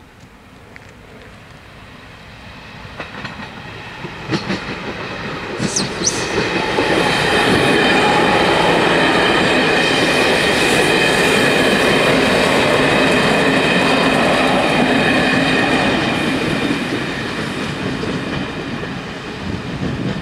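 Locomotive-hauled passenger train of blue HŽ coaches passing over a level crossing. It builds over the first several seconds, runs loud and steady for a stretch in the middle, then eases off as it moves away.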